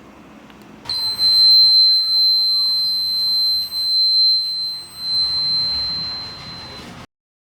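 A steady high-pitched electronic buzzer tone, held for about six seconds, then cut off suddenly.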